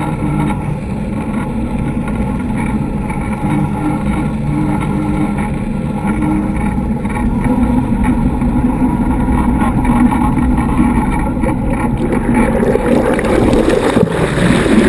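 Sportfishing boat's diesel inboard engines running, a steady drone mixed with wind and water noise. It grows a little louder in the second half.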